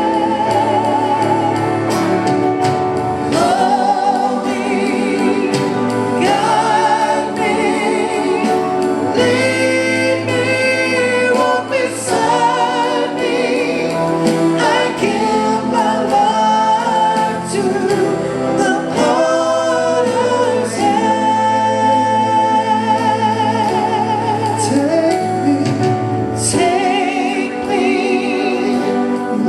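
Live gospel worship music: singers with vibrato over band accompaniment with a steady drum beat.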